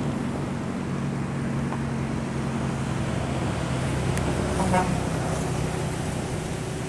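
Mercedes-Benz bus diesel engine running at low speed as the bus rolls slowly forward, a steady low hum, with a brief horn toot about four and a half seconds in.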